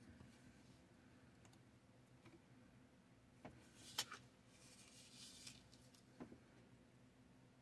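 Faint handling of a thin laser-cut plywood parts sheet on paper instructions. There are a few soft clicks, one sharper tap about four seconds in as the sheet is set down, then a brief papery rustle.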